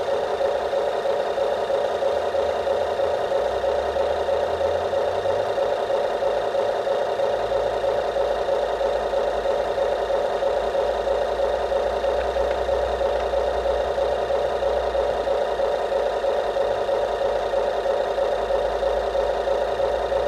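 RC backhoe's engine sound, a steady idle with a fast, even chug that holds unchanged throughout.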